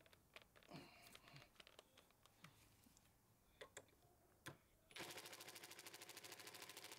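Small plastic clicks and handling knocks of a battery being swapped, then a Ridgid Gen5X brushless impact driver hammering on a screw in rapid, even impacts for about two seconds before cutting off abruptly.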